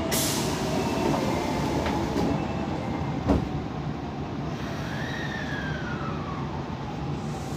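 Cabin noise inside an Osaka Metro 22 series subway car as it stands at a station and then pulls away. There is a short burst of hiss at the start and a sharp thump about three seconds in. From about five seconds the traction motors' whine glides up and then falls away as the train starts moving.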